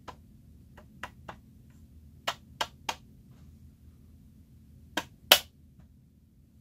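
Sharp plastic clicks and taps from a 1978 battery-powered toy car launcher being pressed and worked by hand, coming in small groups of two or three. The loudest is a single snap about five seconds in, the old launcher mechanism firing.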